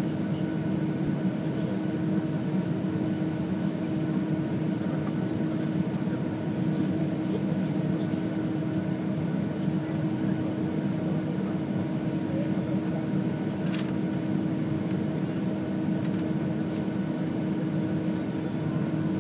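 Steady cabin hum heard inside a Boeing 757-200 on the ground before takeoff, with a constant low drone tone and no change in level.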